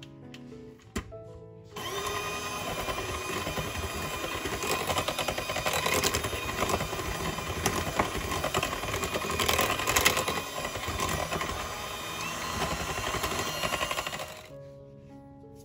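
Electric hand mixer running, its twin wire beaters whipping thick peanut butter and vanilla frosting in a glass bowl. The motor starts about two seconds in, runs steadily and stops near the end.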